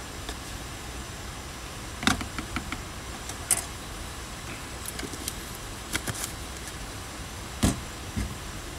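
Clicks and knocks of coffee-making by hand: a spoon tapping as ground coffee is scooped into a French press, a plastic container lid clicked shut, and a sharper knock near the end as the press is set down on the metal table, all over a steady hiss.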